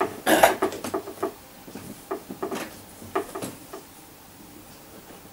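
Hard-shell banjo case being handled, its lid and catches worked: a run of short knocks and clicks, the loudest about half a second in, dying away after about three and a half seconds.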